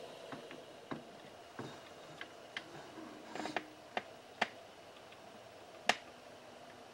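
Faint, irregular clicks and taps, scattered a second or so apart with a small cluster about three and a half seconds in; the sharpest click comes about six seconds in.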